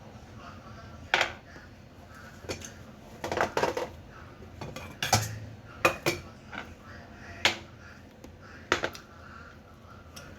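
Cutlery clinking against a plate while eating: about eight sharp, separate clinks at irregular intervals, a second or so apart.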